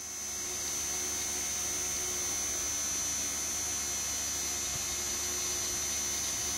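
Electric fan running steadily, a constant hum with a thin high whine, its airflow spinning the free-turning propeller of a small model plane.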